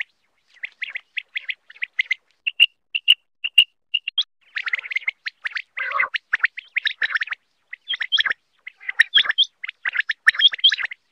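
Common quail calling: quick runs of short, sharp chirping notes, thickest about halfway through and again near the end.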